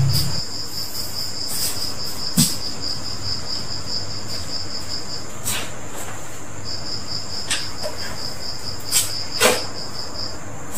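A chirping insect trills steadily in even pulses, about four a second, pausing briefly about halfway through. A few sharp knocks and clicks from handling are heard over it.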